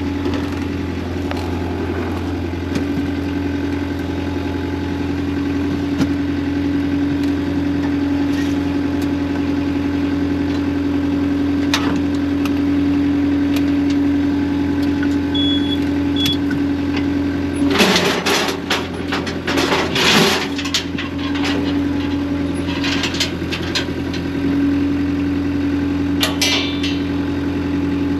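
An engine idling steadily, with a constant hum and low rumble. Loud clattering knocks and rattles come twice about two-thirds of the way through, with a few lighter knocks later.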